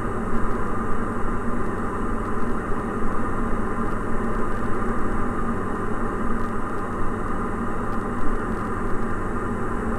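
Cabin noise of a Diamond DA40 NG's Austro AE300 turbo-diesel engine and propeller, droning steadily as the aircraft descends at reduced power.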